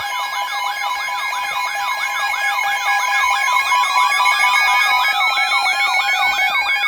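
Emergency alert tones: a siren-like warble sweeping up and down about three times a second over steady alert tones, with a slowly rising tone joining about halfway through.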